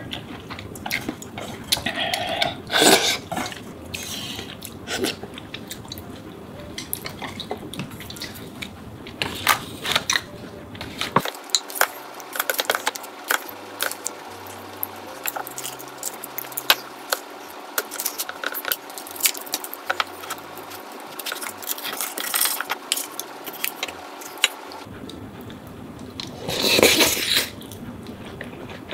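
Close-miked eating sounds: noodles slurped and food chewed, with chopsticks and a spoon clicking against bowls and a metal ramen pot. A louder burst of about a second comes near the end.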